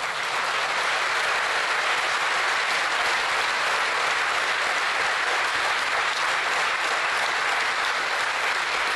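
Large seated audience applauding steadily, a dense, even clapping.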